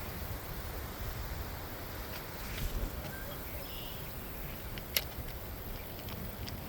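Strong wind buffeting the microphone, a steady low rumble, with a few faint clicks and one sharper click about five seconds in.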